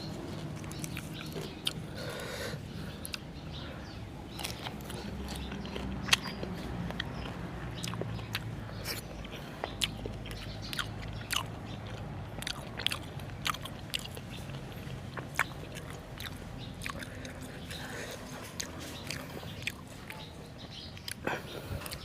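A person chewing and biting raw beef close to the microphone, with many short, sharp clicks and crunches scattered throughout.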